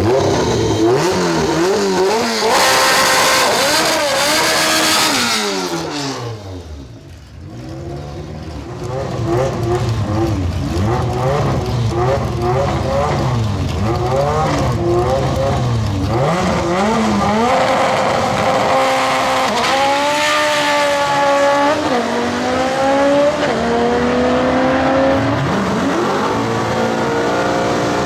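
K20-swapped Honda Civic drag car's engine revving hard through a burnout, with tyre squeal over the first several seconds. The sound dips briefly as the car pulls away. It then revs up and down in repeated blips as it moves up to stage.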